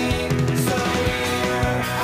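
Background music: a rock track with guitar.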